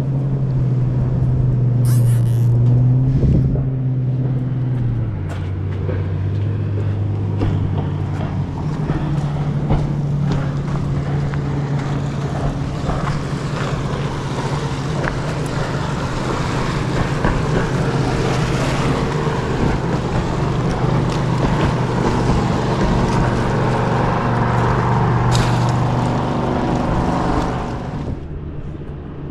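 Motorboat engine running steadily, its pitch stepping down about five seconds in, with a rushing noise that builds later and cuts off shortly before the end.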